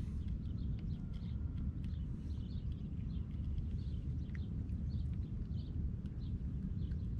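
Open-water ambience from a kayak: a steady low rumble, with faint, scattered high chirps of distant birds.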